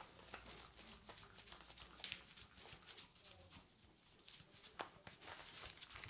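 Hands massaging lathered, wet skin on the neck and shoulders: faint, irregular soft clicks and squishes, a few sharper ones about two seconds in and again near five seconds.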